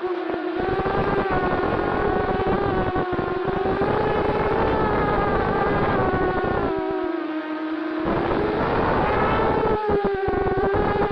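FPV quadcopter's electric motors and propellers whining steadily, the pitch wavering up and down as the throttle changes. Low wind rumble on the microphone comes and goes.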